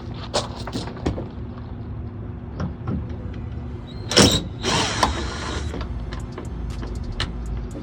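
Phillips screwdriver turning out a tail-light bolt: a run of small clicks and ticks, a louder knock about four seconds in, then about a second of scraping.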